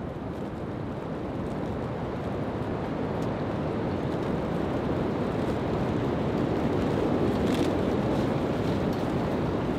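Strong gusting wind buffeting a hot tent's fabric walls, heard from inside as a deep, steady rush that swells over several seconds.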